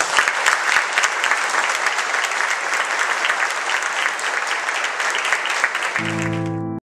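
Audience applauding, a dense steady patter of many hands clapping. Near the end a brief low held tone joins in, and everything cuts off abruptly.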